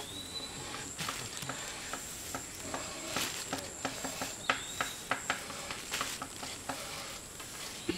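A woven plastic sack crackling and rustling as sawdust is scooped into it by hand, with scraping of the sawdust and many small irregular clicks.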